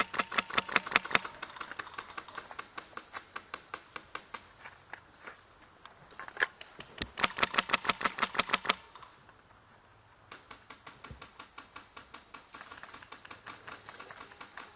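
Airsoft guns firing full-auto bursts at roughly ten shots a second: a loud burst in the first second, fainter fire from farther off, a single sharp shot, then another loud burst from about seven to nine seconds in. After a short lull the distant fire starts again.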